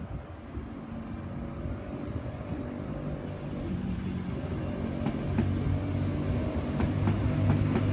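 Sydney Trains Tangara electric train pulling out, its chopper-controlled traction motors humming steadily and growing louder as the cars go by.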